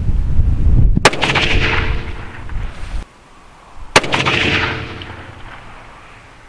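Two rifle shots about three seconds apart from a CZ 600 Range bolt-action in .308 firing Hornady Black 168-grain A-MAX. Each is a sharp crack followed by a rolling echo that fades over a second or two.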